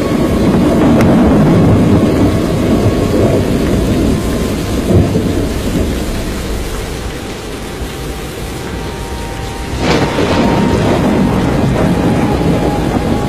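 Loud, low storm rumble of tornado wind and thunder, easing off midway, then a sharp thunder-like crack about ten seconds in as the rumble builds again.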